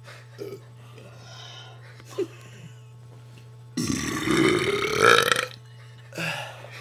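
A boy's long, loud forced burp lasting about a second and a half, starting about four seconds in, its pitch climbing as it goes.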